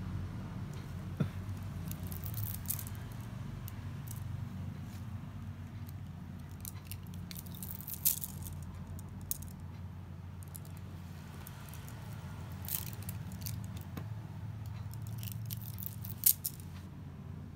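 Beaded bracelets handled and stacked on a wrist, their hard round beads clicking and rattling against each other in scattered short clicks, the sharpest a quick double click near the end, over a steady low hum.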